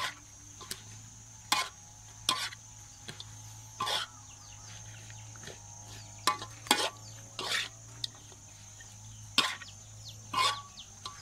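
Metal spatula scraping and knocking against a large steel wok while a stir-fry is turned, in irregular strokes roughly once a second.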